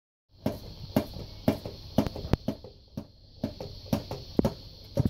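Motorized furry toy weasel rattling and knocking irregularly, roughly two knocks a second, as it bumps against a plastic bag and the cat paws at it.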